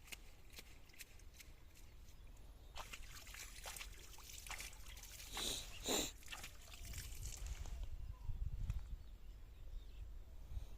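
Water sloshing and trickling, with scattered small clicks and two louder splashes about halfway through.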